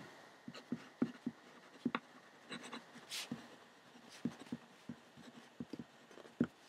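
A fountain pen nib scratching across paper in short, irregular strokes as words are handwritten.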